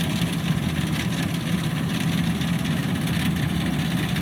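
Kubota DC93 rice combine harvester's diesel engine running steadily, a constant low drone with machinery noise over it.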